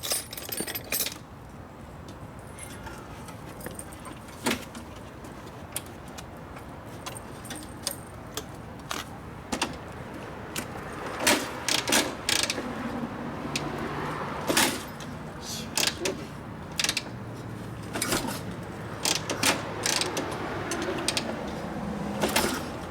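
Irregular metallic clicks, clanks and rattles from hands-on work on a motorcycle, many sharp knocks in quick clusters over a low steady hum.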